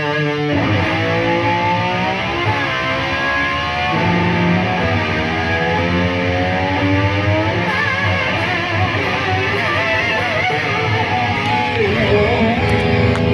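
Distorted electric guitar playing, with notes sliding and bending up and down in pitch.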